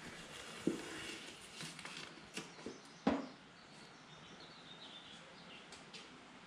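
Masking tape being peeled off a freshly spray-painted welding helmet, a faint crackling rip, with a few sharp knocks, the loudest about three seconds in. Faint bird chirps in the background.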